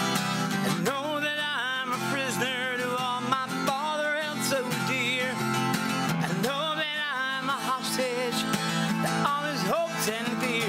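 A man singing a slow ballad with vibrato over a twelve-string acoustic guitar. The guitar plays alone for about the first second, then the voice comes in.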